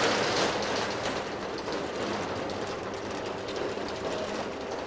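Ribbed metal roller shutter rolling down with a steady clattering rattle, loudest as it starts.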